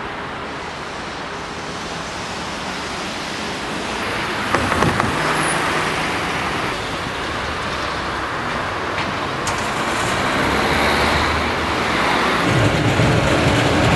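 Steady noise of road traffic, with a few short knocks about four and a half seconds in and a deeper rumble building near the end.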